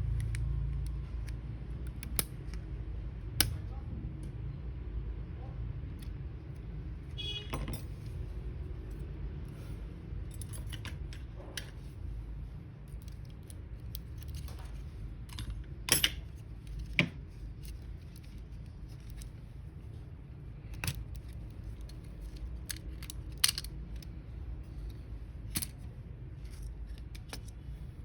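Scattered small clicks, taps and rattles of hand tools and small plastic parts being handled, heard against a steady low hum.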